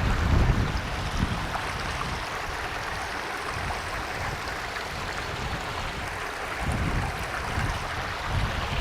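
Steady rush of a waterfall's cascading water. Low gusts of wind buffet the microphone at the start and again about seven seconds in.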